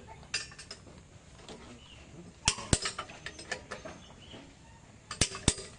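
Sharp metal clicks and knocks from hand tools working on an excavator's track links: one near the start, a quick cluster in the middle and two more near the end.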